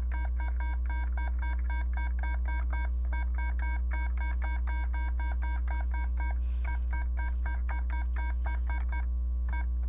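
Atari 1200XL self-test keyboard beeps: a quick, even run of short electronic tones, about four a second, one for each key pressed in the keyboard diagnostic, with a brief pause past the middle. A steady low mains hum runs underneath and is the loudest sound.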